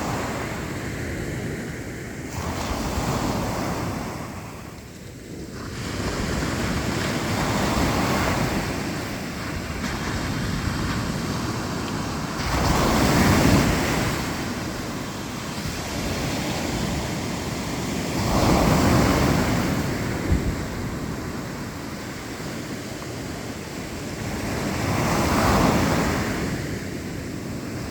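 Black Sea waves breaking on the shore, the surf swelling and falling back every five or six seconds, with wind on the microphone. A single short thump sounds about twenty seconds in.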